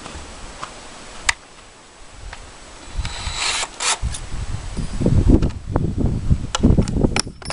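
Wind buffeting the microphone in gusts, heaviest in the second half, with a few sharp clicks and a short rasp from handling a cordless drill as its bit is swapped.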